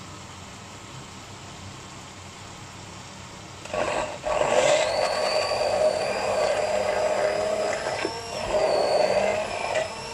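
Immersion blender switched on about four seconds in, whirring with a high, slightly wavering whine as it grinds toasted sesame seeds with a little water into a paste. It falls off briefly a couple of times near the end.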